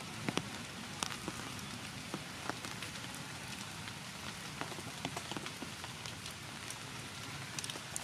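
Steady rain falling on forest foliage, with irregular single drops hitting close by throughout.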